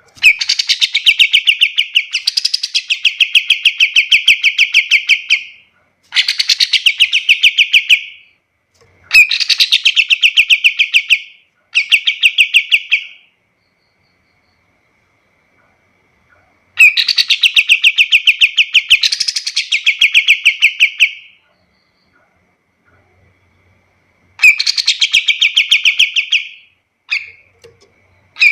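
Kapas tembak songbird singing: about seven bursts of rapid, evenly repeated chattering notes, each lasting one to five seconds, with short pauses between them and a longer pause midway.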